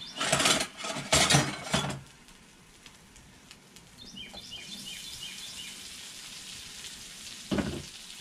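Boiled potatoes tipped onto a hot Blackstone flat-top griddle, starting to sizzle about halfway through with a steady hiss and a thump near the end. In the first two seconds there are a few loud handling noises, and birds chirp in the background.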